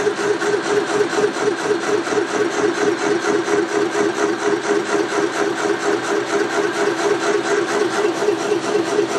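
Large milling machine running, its face-mill cutter skimming the deck face of an engine cylinder head to raise the compression ratio. The sound is a steady machine hum with a fast, even pulse.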